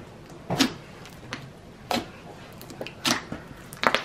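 Blue glitter slime being pressed and kneaded by hand, giving about five short, sharp squelches at uneven intervals.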